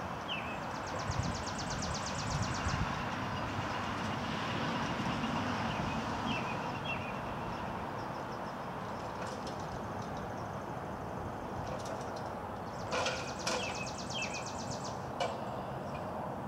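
Outdoor ambience with a steady rushing background. Birds chirp and give two rapid, high trills, one a second or so in and one about two-thirds through. A few sharp knocks come near the end.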